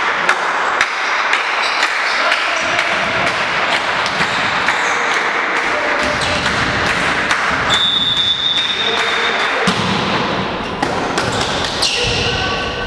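Volleyball play in a large sports hall: the ball is struck and lands with irregular thuds and taps that echo off the walls and high roof. Shoes and distant voices fill the hall between the hits, and a brief high tone sounds about eight seconds in.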